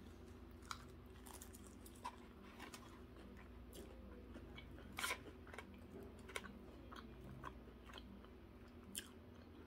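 Faint close chewing of a crisp batter-fried chicken wing, with scattered soft crunches and crackles of the coating, over a faint steady hum.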